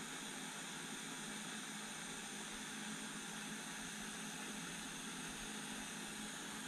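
Steady hiss of a LEXIVON LX-770 butane soldering iron burning gas at its tip.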